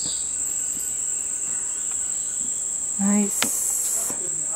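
Steady high-pitched drone of an insect chorus. About three seconds in there is a brief low call, followed by a sharp click.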